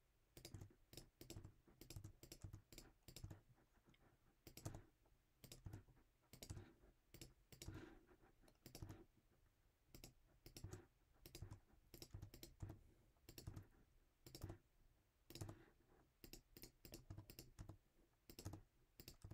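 Faint, irregular clicking of computer controls, mouse clicks and key taps, in uneven runs of several clicks with short pauses between them.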